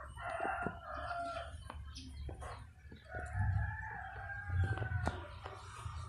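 A rooster crowing twice, a short crow at the start and a longer one from about halfway in that falls slightly in pitch.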